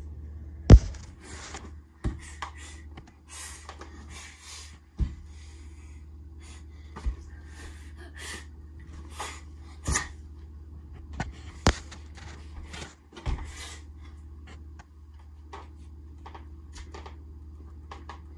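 Irregular knocks and scrapes from caramel popcorn being stirred in a pot on the stove, with short hissing noises between them and a sharp knock about a second in, over a steady low hum.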